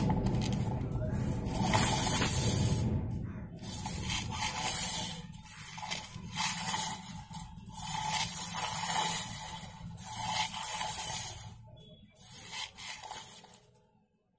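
Steel blade of a plastic-cased measuring tape sliding through the mouth of the case, in about six short scraping strokes one to two seconds apart, as the repaired tape is pulled out and let back in. A low rumble fades out in the first few seconds.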